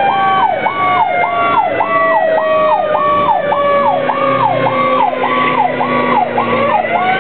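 Fire engine sirens while responding: an electronic yelp sweeps rapidly up and down about twice a second, and a second, slower siren tone falls gradually in pitch and winds back up near the end. A low steady tone joins about four seconds in.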